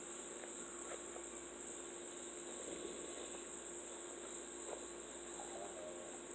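Quiet room tone: a steady high-pitched whine, like an insect trill, with a steady low hum beneath and a few faint ticks.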